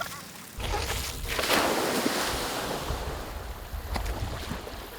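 Skim bike's skis hitting the water and skimming across it, a rushing hiss of spray that swells about a second and a half in and then fades. Wind buffets the microphone with a low rumble from about half a second in.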